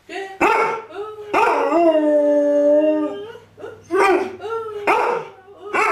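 A dog howling with its muzzle raised. One long steady howl is held for about a second and a half, and it is followed by shorter howls about once a second.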